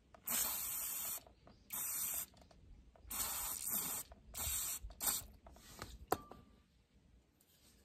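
Aerosol carburetor cleaner sprayed onto a disassembled small-engine carburetor in five short bursts, each under a second, flushing it out. A single sharp click about six seconds in.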